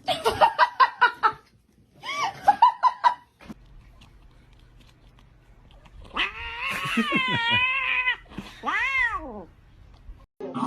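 Domestic cat yowling: one long, wavering caterwaul about six seconds in, followed by a shorter meow that rises and falls. Short pulsing voice sounds, possibly a person, come in the first three seconds.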